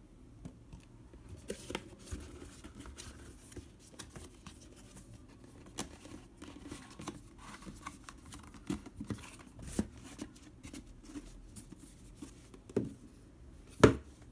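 Corrugated cardboard mailer box being folded shut by hand: flaps scraping, creasing and tapping against each other, with two louder knocks near the end.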